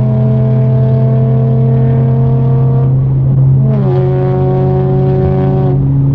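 Straight-piped Nissan 370Z's 3.7-litre V6 running under steady load, a loud drone whose note creeps slowly upward. About three and a half seconds in, its pitch bends briefly, then it holds steady again.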